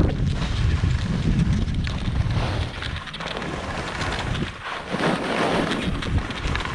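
Wind buffeting a camera microphone during a downhill ski run: a steady rush with a low rumble, easing for a couple of seconds around the middle.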